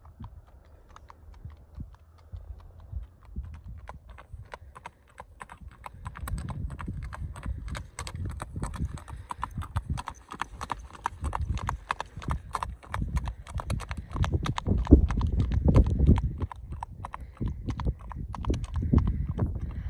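A horse's hooves clip-clopping on an asphalt road at a steady gait, a quick even train of sharp clicks. Faint at first, they grow louder as the horse comes near, are loudest about three quarters of the way through, then ease as it moves away.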